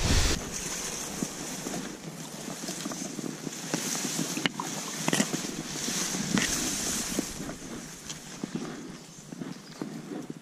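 Wind rushing over the microphone with grass and reeds rustling against it, a strong low gust at the start and a few light clicks in the middle.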